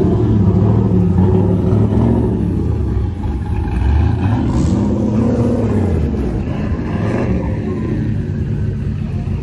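A car engine running under way, its note rising and falling as it is driven.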